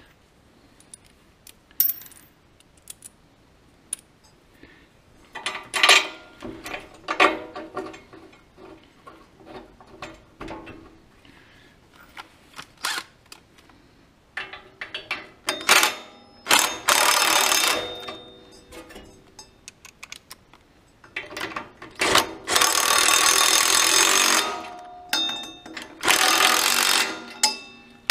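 Bolts being fitted into a Cub Cadet garden tractor's transaxle: scattered small metal clinks and knocks, then three bursts of rapid mechanical clicking, a couple of seconds each, from the tool running the bolts in. The bursts in the second half are the loudest part.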